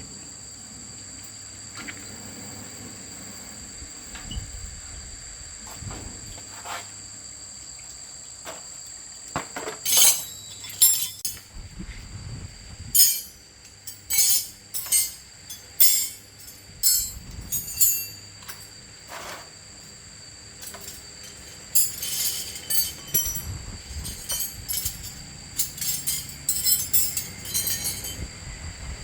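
Irregular sharp metallic clinks and knocks, like hand tools and loose metal parts handled during repair work, come thick from about ten seconds in. Under them runs a steady high-pitched insect drone.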